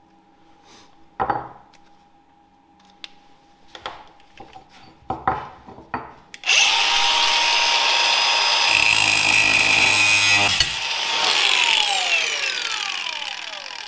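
A few handling knocks, then an angle grinder with an aluminium cutting disc starts about halfway through with a loud high whine. It cuts into aluminium for about two seconds and is switched off, its pitch falling as the disc spins down.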